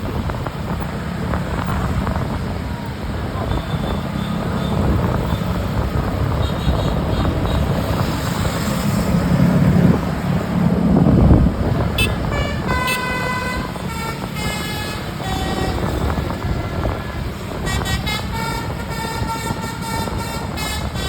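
A bus's rumbling engine and traffic noise swell to a peak about ten seconds in. Then, from about twelve seconds, a telolet 'basuri' musical air horn plays a tune of short stepped notes.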